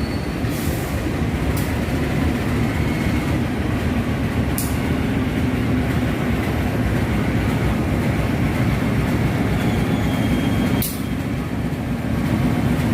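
A train running past at close range: a steady, loud rumble of wheels on rails, with a few sharp clicks scattered through it.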